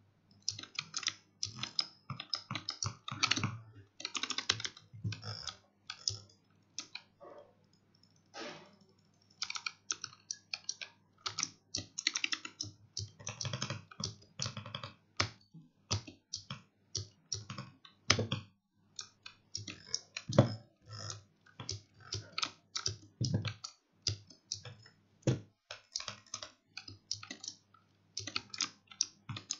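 Keys of a Razer Huntsman Mini, a 60% keyboard with optical switches, pressed in rapid, irregular runs of keystrokes with short pauses.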